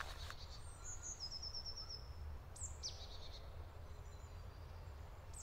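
Forest birds calling faintly: a short, rapid trill of repeated high notes about a second in, then a few quick high chirps that sweep downward, over a low steady rumble.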